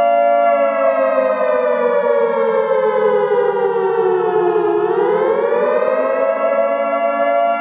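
Siren-style emergency alarm tone: a steady chord of tones that slides down in pitch over about four seconds, then swings back up and holds steady again.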